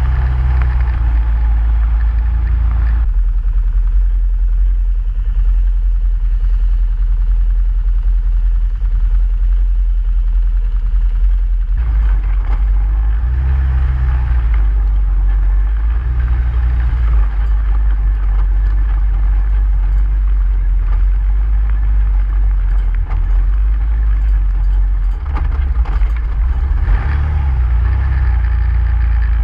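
ATV engine running with a strong low rumble while riding, its note shifting a few times as the load changes.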